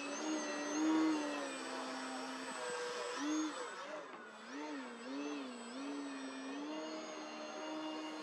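Electric RC biplane's motor and propeller droning in flight, the pitch swinging up and down again and again, then holding steady from about seven seconds in.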